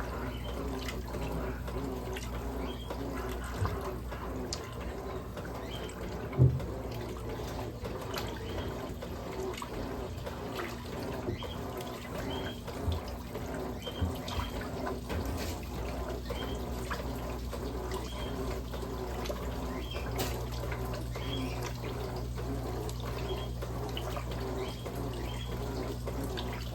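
Electrolux LM08A top-loading washing machine agitating a load of towels. The motor hums steadily while the dual-action agitator swishes the water back and forth in a regular rhythm. A sharp knock comes about six seconds in.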